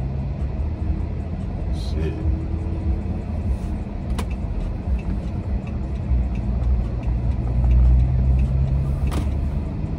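Vehicle engine and road rumble heard from inside the cab in slow traffic, with the engine hum growing steadier and louder about three quarters of the way in. Two sharp clicks sound, one midway and one near the end.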